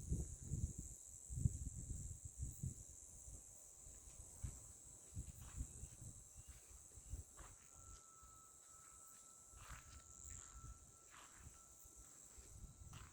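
Steady high-pitched insect buzz, which she takes for a distant cicada. About halfway through, a second, lower steady note joins it, with soft low thumps in the first few seconds.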